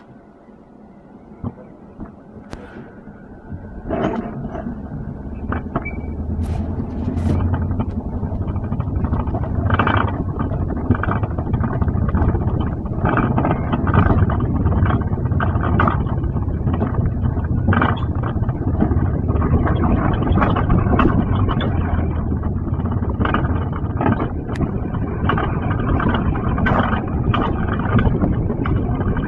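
Alpine coaster sled running down its steel rail, its wheels rumbling and rattling. It starts faint with a few clicks, turns loud about four seconds in as the sled picks up speed, and keeps going with frequent sharp clacks.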